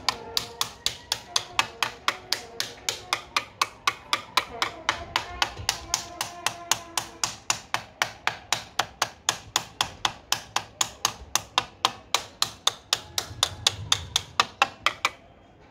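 Hand claps close by, steady at about four a second, stopping shortly before the end, with faint voices behind them.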